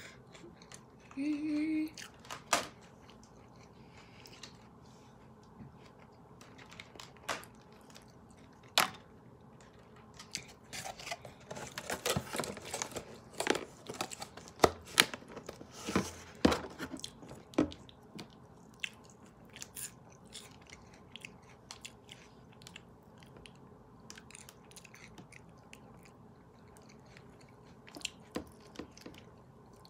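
Close-up eating sounds: chewing and crunching of salad, with sharp clicks and crackles of a plastic fork and a plastic takeout salad container being handled, busiest in the middle.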